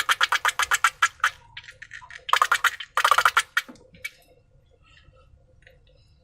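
Slime being squeezed and worked by hand, giving a fast run of crackling clicks, then two short bursts of crackling about two and three seconds in before it goes faint.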